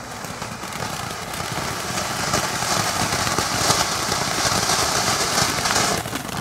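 A ground fountain firework spraying sparks with a steady, loud hiss that builds over the first couple of seconds and dies off abruptly near the end.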